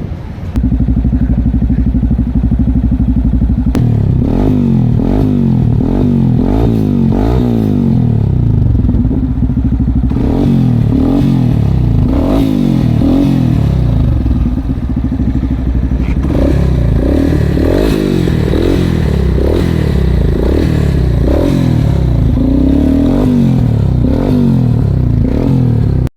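Yamaha XTZ 250 single-cylinder engine breathing through an aftermarket full exhaust system with an FMF-style muffler: it idles steadily for a few seconds, then is revved again and again in short blips, the pitch rising and falling with each twist of the throttle.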